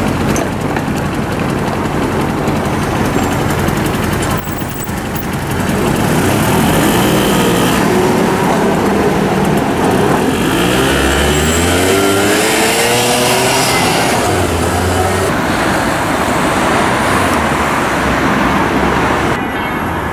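City street traffic with small motor vehicle engines running. About ten seconds in, an engine speeds up with a rising pitch for a few seconds.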